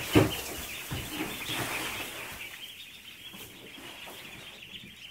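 A brood of young Khaki Campbell ducklings peeping, with a rustle of straw dropped onto them right at the start. The peeping is busiest in the first couple of seconds, then thins out and goes quieter.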